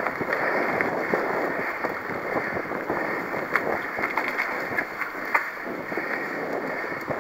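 Mountain bike rolling along a dirt forest singletrack: a steady rush of wind on the microphone and tyre noise, with a few sharp rattles and clicks from the bike over bumps.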